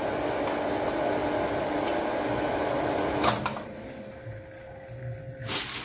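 Sanyo jet water pump running with a faint, soft, steady hum: it has lost its prime with air in it, so it runs without drawing water. About three seconds in, a click as it is unplugged, and the hum drops away. A plastic bag rustles near the end.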